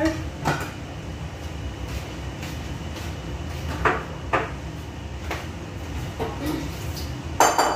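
Kitchen handling sounds over a steady background hum: a few light knocks and clinks of cookware and cupboard doors, then one loud sharp clatter near the end.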